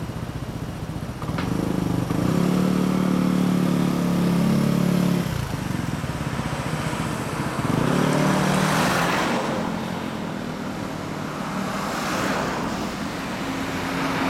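Yamaha Cygnus-X 125 scooter's single-cylinder four-stroke engine through a Josho1 Hyper Racing aftermarket muffler, idling and then accelerating away. The exhaust note rises after about a second and a half, drops off about five seconds in, and rises again about eight seconds in, before fading into general traffic noise.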